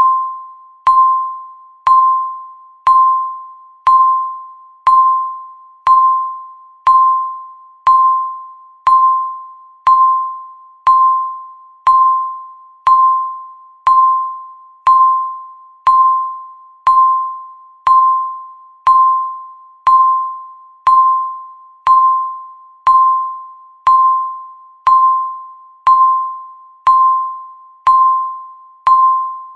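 Countdown timer beeping once every second: a single mid-pitched electronic tone, struck sharply and dying away before the next one, over and over at an even pace.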